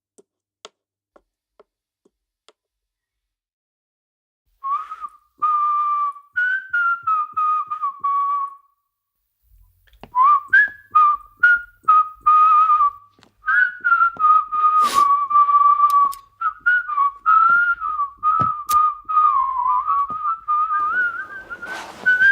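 A person whistling a wandering tune that starts about four seconds in, stops briefly, then carries on, with scattered light clicks and knocks under it.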